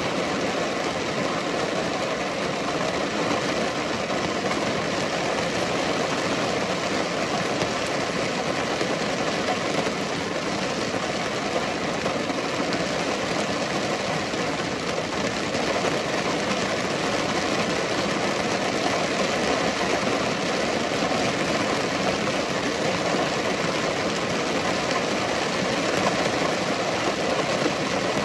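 Steady rain falling: an even, unbroken hiss with no distinct drops or changes.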